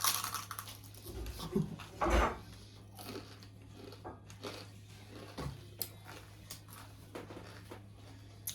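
Close-up chewing and biting of crunchy sel roti, the fried rice-flour ring bread, as a series of short crackly crunches, the loudest at the start and about two seconds in. A steady low electrical hum runs underneath.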